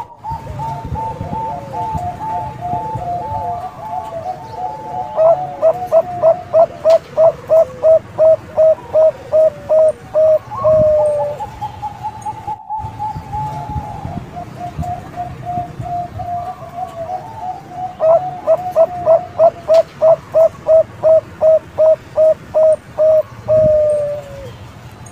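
A Bangkok-type zebra dove (perkutut) singing two song bouts: each opens with a long, rolling trill, breaks into a fast run of clipped coos, about two to three a second, and ends on a short falling note.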